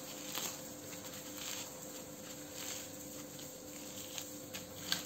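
Soft rustling and light crackling of thin, flaky msemen flatbread being torn and crumpled into small pieces by hand, with a few light ticks, over a faint steady hum.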